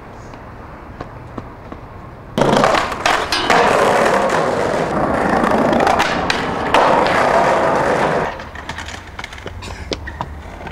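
Skateboard wheels rolling loudly over rough pavement. The roll starts abruptly about two seconds in with a clack and stops about eight seconds in, with a few board clacks along the way.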